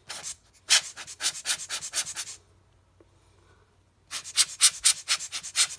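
Quick, even rubbing strokes on a lens element, about seven a second, in two runs with a pause of about two seconds between: the glass being wiped clean after fungus removal.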